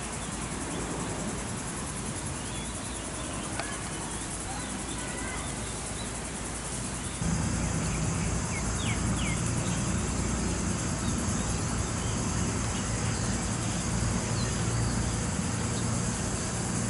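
Outdoor garden ambience: a steady high drone of insects with a few short bird chirps over a low rumble. It gets louder at a cut about seven seconds in.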